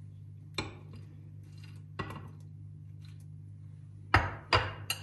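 Metal spoon knocking and clinking against glass bowls while croutons are spooned onto soup: a single tap about half a second in, another about two seconds in, and a quick run of louder knocks near the end, over a low steady hum.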